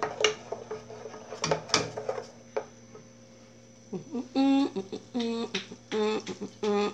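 A wooden spoon knocks and scrapes a few times against an aluminium pan while margarine melts in it. From about four seconds in, a louder series of short pitched calls or tones repeats roughly every second, like a voice or a simple melody.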